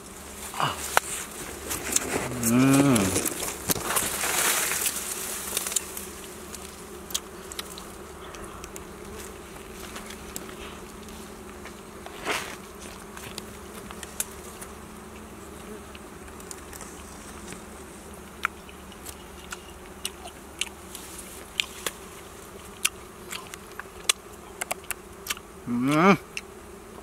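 Bees buzzing steadily around their exposed honeycomb, with scattered small clicks of chewing raw comb. A short rising voice-like call comes twice, a couple of seconds in and near the end.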